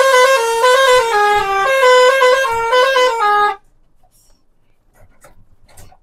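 Truck's musical horn playing a quick tune of stepped notes, cutting off suddenly about three and a half seconds in.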